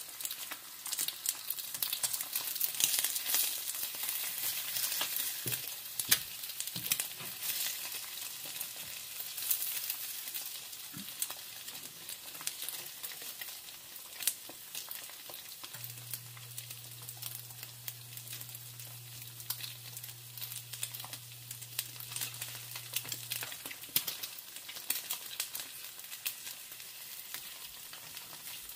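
Eggs frying in olive oil in a pan, a steady sizzle full of small crackles, busiest in the first few seconds, with a silicone spatula scraping and nudging under the eggs. The oil is hot enough to crisp the egg bottoms. A faint low hum runs for several seconds past the middle.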